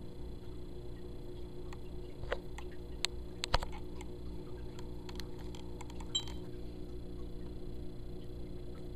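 Clicks and taps from handling a camcorder, the loudest about three and a half seconds in, with a short electronic beep about six seconds in as its touchscreen is pressed. A steady low electrical hum runs underneath.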